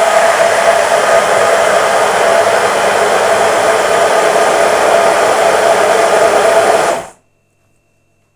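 Hand-held immersion blender running loud and steady at the bottom of a tall beaker of milk and refined oil, with a steady motor whine, emulsifying them into milk mayonnaise. It is switched off about seven seconds in, when the mixture has almost set.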